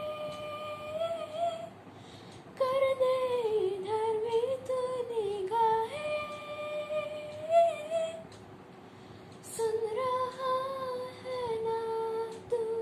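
A 13-year-old girl's voice singing unaccompanied. She hums or sings a wordless melody of long held notes that slide between pitches, with two short breaks.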